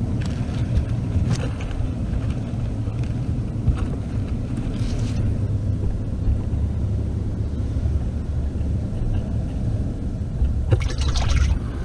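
Muffled, steady underwater rumble picked up by a GoPro in its waterproof housing submerged in a tide pool, with a few faint clicks and knocks, most of them near the end.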